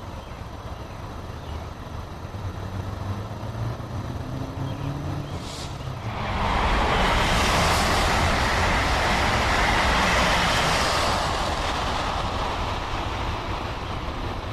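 A train passing close by: a low engine drone builds, then a loud rushing noise sets in about six seconds in, lasts about five seconds and fades toward the end.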